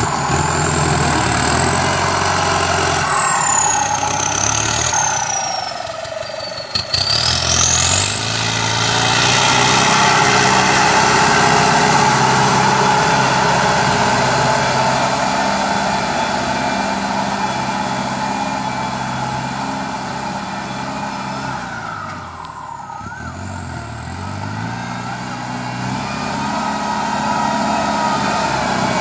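Turbocharged New Holland Ford 7740 tractor's diesel engine working under load pulling a disc plough. A thin high turbo whistle sits over the engine note, falling in pitch over the first several seconds and then rising again. The engine note dips and picks up again about two-thirds of the way through.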